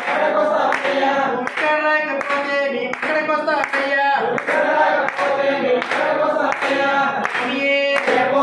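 A group of devotees singing a devotional bhajan together, clapping their hands in time at about two claps a second.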